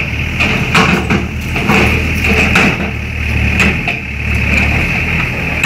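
Diesel engine of a Volvo EW60C wheeled excavator running steadily, with scattered knocks and clatter of demolition debris.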